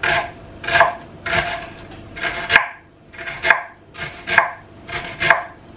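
Kitchen knife chopping onion on a cutting board: separate, unevenly spaced cuts, roughly one to two a second, each a short sharp tap of the blade on the board.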